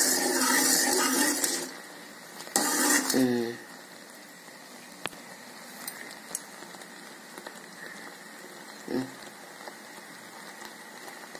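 Jaggery syrup boiling in an aluminium pan, a faint, steady bubbling hiss with a few small ladle clicks; the syrup has reached the one-thread stage. A louder stretch of noise runs through the first two seconds, with a short voice-like sound at about three seconds.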